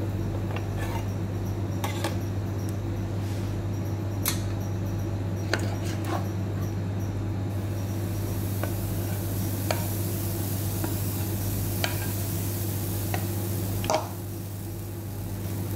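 Electric roti maker with a steady low hum and scattered small clicks and ticks. From about eight seconds a faint sizzling hiss joins as pancake batter is poured onto the hot plate, cutting off suddenly near fourteen seconds.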